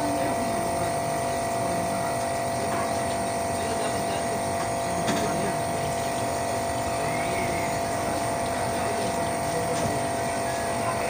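Steady mechanical hum with a few constant tones held over an even noise, like a motor or pump running.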